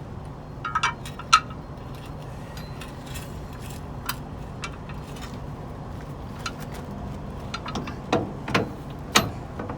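Metal clinks and knocks, a few scattered ones with a cluster near the end, from handling a heavy truck drum-brake shoe and its hardware as it is checked for fit, over a steady low hum.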